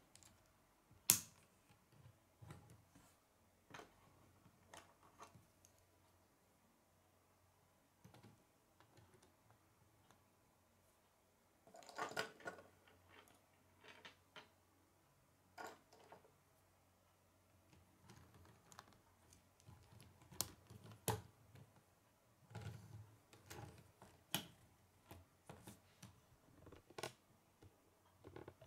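Plastic K'nex rods and connectors clicking and snapping together as they are fitted by hand, in scattered irregular clicks. There is a sharp snap about a second in and a busy cluster of clicks near the middle.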